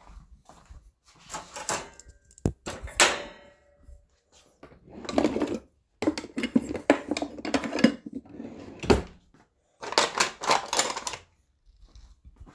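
Ceramic plates and bowls being handled and stacked, clinking and clattering in bursts. There is one ringing clink about three seconds in.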